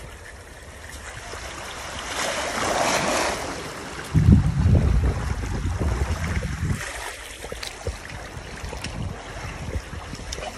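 Seawater washing over a shallow sandy shore, swelling about two seconds in, with wind buffeting the microphone in a loud low rumble from about four seconds in.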